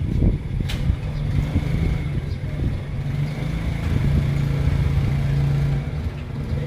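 A motor vehicle engine running nearby: a steady low hum that grows stronger about four seconds in, with a brief sharp click just under a second in.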